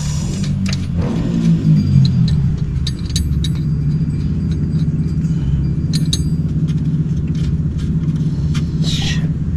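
Scattered light metallic clinks and clicks of a wrench working the alternator mounting bolts in a car engine bay, over a steady low drone.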